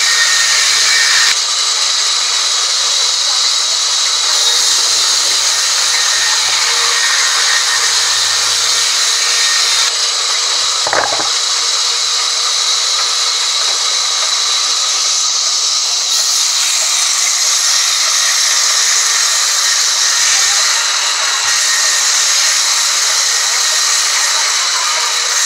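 Band sawmill running and cutting through timber: a steady, loud, high-pitched rushing noise, with one sharp knock about eleven seconds in.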